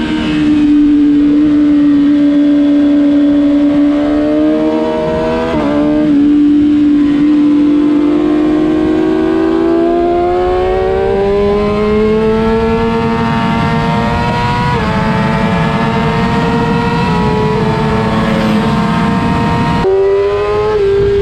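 Kawasaki ZX-6R inline-four engine running loud at high revs under full throttle, its pitch climbing slowly through long pulls with a few brief breaks at gear changes, the last near the end.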